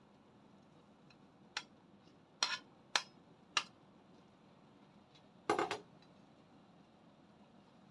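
A metal spoon clinking against a ceramic plate and the rim of a steel pot as sliced ginger is pushed off into the boiling water: four sharp clinks spaced about half a second apart, then a quick rattle of several more a little past halfway. Under them, the faint steady hiss of the pot at a rolling boil.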